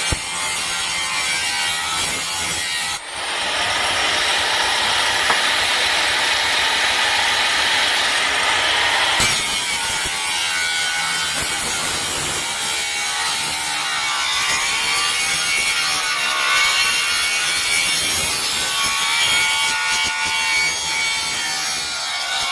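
Makita 7-inch 1500-watt angle grinder grinding a steel sickle blade: a continuous harsh grinding with a wavering high whine as the blade moves against the disc. There is a brief dip about three seconds in, then heavier grinding for several seconds.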